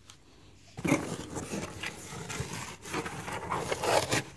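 Cardboard box flaps being handled and pulled open by hand: a run of rubbing and scraping sounds starting about a second in.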